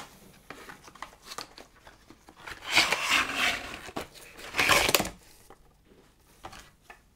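Product packaging being handled and torn open: rustling and crinkling, with two louder tearing rustles about three and five seconds in.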